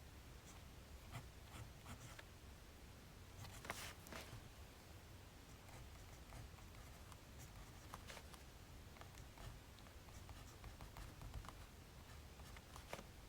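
Faint scratching of writing on paper, with a few sharper ticks and rustles scattered through, the strongest about four seconds in.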